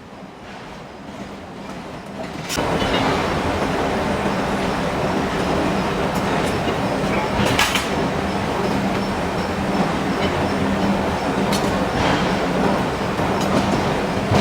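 Heavy forge-shop machinery starting up abruptly about two and a half seconds in and then running with a loud, steady rumble and hum, broken by a few sharp metallic clanks.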